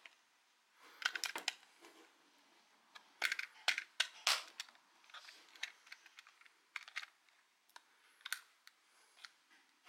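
Hard plastic clicks and taps from a headlamp's battery compartment being closed and latched, coming in several short clusters, the busiest about a second in and again around three to four seconds in.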